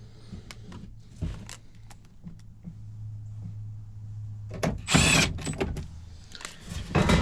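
Cordless screw gun whirring in short bursts as sheet-metal panel screws are driven, the loudest about five seconds in, with clicks and knocks of the metal panels being handled and a steady low hum in the middle.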